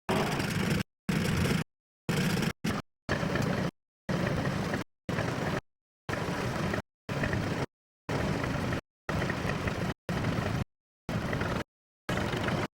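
Tractor engine running as it pulls a trailer plough. The sound keeps cutting out into dead silence and back again roughly every second.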